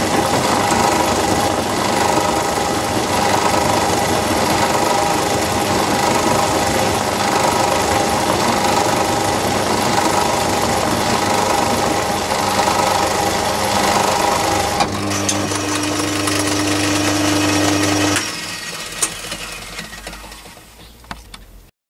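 Myford lathe driving a milling cutter into a Dixon quick-change tool holder on a vertical slide, with a steady, loud cutting noise as the slide is fed in by hand. About 15 seconds in, the cutting stops and the lathe runs free; about 18 seconds in it is switched off and winds down.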